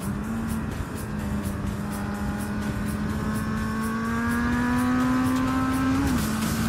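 Kawasaki Z800's inline-four engine pulling under throttle in one gear, its pitch rising slowly for several seconds, then dropping quickly about six seconds in as the rider shifts up, over wind noise.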